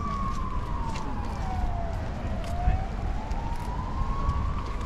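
An emergency vehicle's siren wailing slowly: its pitch falls over about two seconds, then climbs again toward the end, over a low rumble of city street noise.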